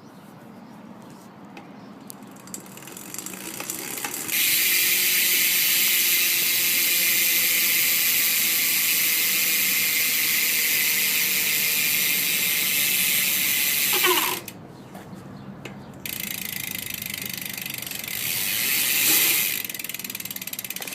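BMX rear hub ratcheting as the wheel freewheels: a loud, fast, steady buzz of pawl clicks from about four seconds in, cutting off around fourteen seconds, then starting again about two seconds later.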